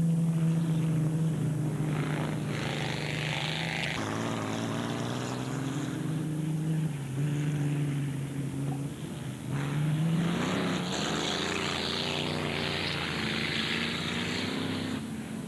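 Race car engines running hard on a dirt track, their drone rising and falling in pitch as the cars pass. A rushing hiss rises over it twice.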